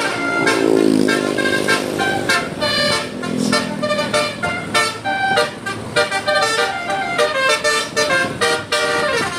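Telolet basuri musical horn on a modified Hino, playing a quick tune of short horn notes that jump from pitch to pitch. A lower tone slides down in pitch about a second in.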